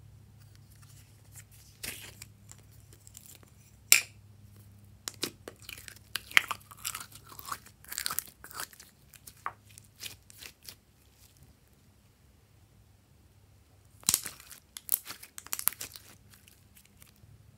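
Hands squishing and pressing slime, making crisp crackling and popping in bursts, with one sharp click about four seconds in. The crackling pauses for a few seconds before a last burst near the end.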